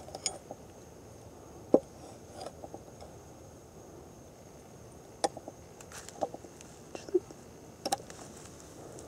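Scattered light knocks and taps on a wooden board as a meat cleaver and a skinned squirrel carcass are handled, the sharpest knock about two seconds in. A faint steady high tone runs underneath.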